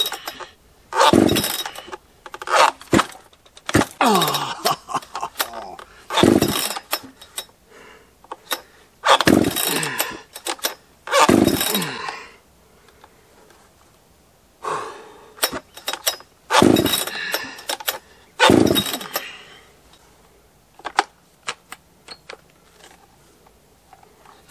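Gas chainsaw's recoil starter cord yanked again and again, each pull a short whirring crank of the engine with no sustained running. It does not fire because the tank has run completely dry. The pulls stop about 19 seconds in, leaving a few small clicks.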